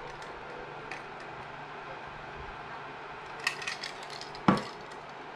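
A drinking cup being handled, with light clinks and a quick cluster of taps about three and a half seconds in, then one sharp knock near the end as it is set down on a hard surface.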